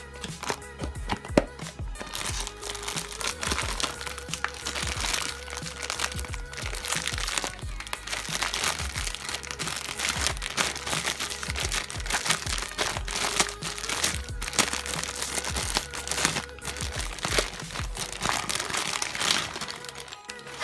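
Clear plastic bag crinkling and crackling as it is handled and pulled away from a motorcycle stator, with a sharp crack about a second and a half in. Music plays in the background.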